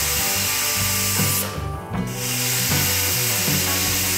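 Pressure cooker's weight valve whistling: a loud steam hiss that breaks off for about half a second around a second and a half in, then starts again, as the cooker vents at full pressure. Background music with a low bass line plays under it.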